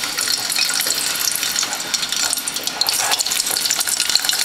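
Halved green plantains deep-frying in a pot of hot oil: a steady sizzle full of fine crackling.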